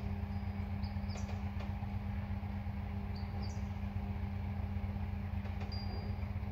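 Engine of the mast lifter holding and lowering a scrap van, running with a steady low hum. A few short high chirps that rise in steps sound about a second in and again about three seconds in.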